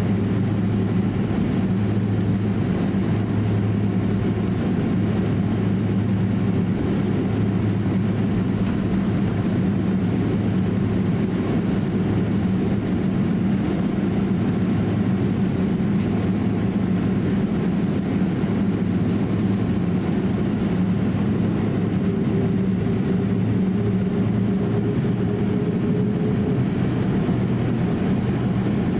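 Steady low hum inside the cabin of a Boeing 767-300 airliner taxiing on its jet engines at low power. A faint whine comes in for a few seconds near the end.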